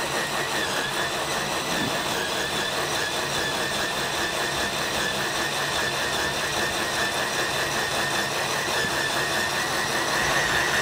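DeWalt 18V cordless combi drill running steadily under heavy hand pressure, its HSS bit cutting into steel about halfway through a 9 mm hole: an unbroken motor whine mixed with the grinding of the bit.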